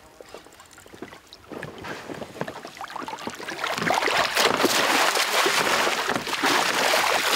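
A large pike thrashing and splashing at the water's surface as it is scooped into a landing net. The splashing starts faintly about two seconds in and is loud from about four seconds on.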